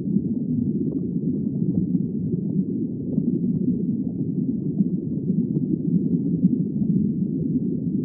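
Underwater recording: a steady, low, muffled rumble of water noise with nothing high-pitched in it.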